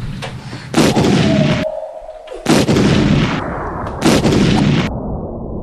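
Three loud blast sound effects, each a sudden bang with a fading rumble tail, about a second and a half apart.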